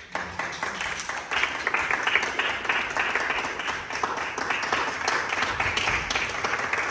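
A small group of people applauding, a dense patter of hand claps that starts suddenly and keeps on at an even level.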